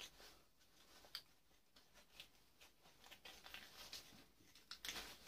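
Faint, irregular scraping and ticking of a metal screwdriver picking burnt copper winding wire off a small motor armature, with a cluster of louder scrapes near the end.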